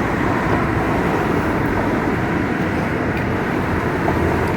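A steady mechanical drone with a low rumble, holding even throughout without rising or falling.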